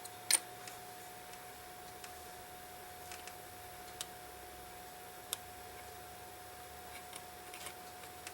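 Scattered small metallic clicks and taps of watchmaker's tools on the parts of a pocket watch movement, the sharpest about a third of a second in, the rest spaced irregularly, over a faint steady hum.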